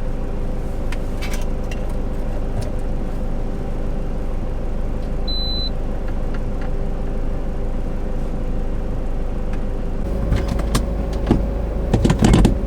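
Camper van driving, with a steady engine and road hum inside the cabin. A short high beep sounds about five seconds in, and a few knocks and a louder rumble come near the end.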